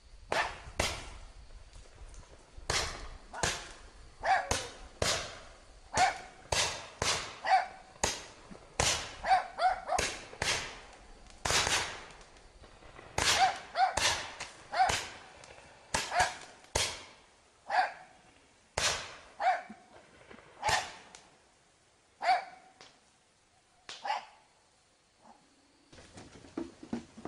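Fireworks going off in a long, uneven run of sharp bangs, one or two a second, each trailing off briefly, thinning out and stopping a few seconds before the end.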